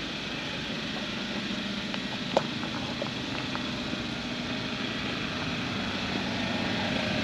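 An engine running steadily, with one sharp click about two and a half seconds in, growing slightly louder toward the end.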